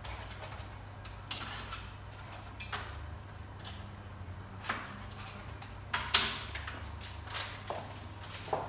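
Kitchen handling sounds at a counter: about half a dozen short clicks and knocks of utensils and food being handled, the loudest about six seconds in, over a steady low hum.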